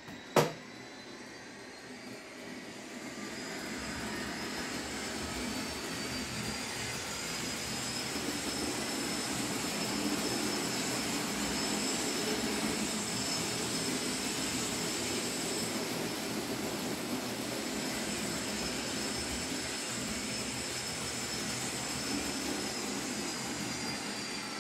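Class 56 diesel locomotive engine sound played by an HM7000 sound decoder through a model locomotive's small speaker, building up as the model pulls away and then running steadily, with a high whine that rises slightly as it builds. A sharp click about half a second in.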